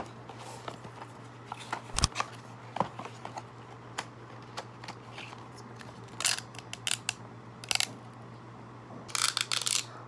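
Cardboard and paper chocolate packaging handled and opened by hand: scattered taps and clicks, with crinkling bursts about six, seven and a half, and nine seconds in. A steady low hum runs underneath.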